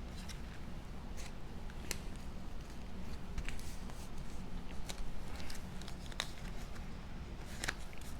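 Cardstock pieces being handled and pressed together by hand: scattered light taps and paper rustles, over a steady low hum.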